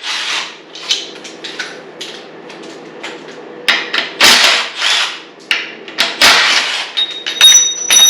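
Metal hand tools clattering: sockets and wrenches knocking and sliding against each other in several short bursts. Near the end a piece of metal rings with a clear high tone.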